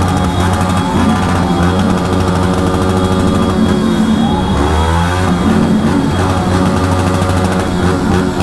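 Motorcycle engine running at low speed, heard from the rider's seat, with the engine note dipping and then rising again about halfway through as the throttle is eased off and reopened.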